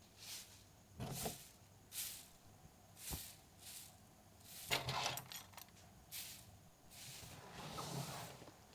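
Foley of someone handling things in a room: a string of soft knocks and rustles, roughly one a second, with a longer rustle near the end.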